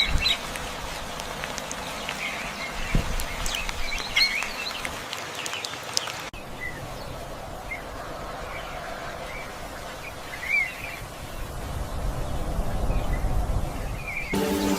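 Wild birds chirping in short, scattered calls over a steady outdoor hiss; music comes in just before the end.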